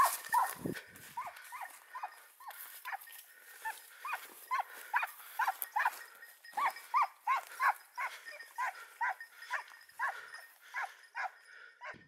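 Hunting dog barking over and over in a steady run, about three barks a second.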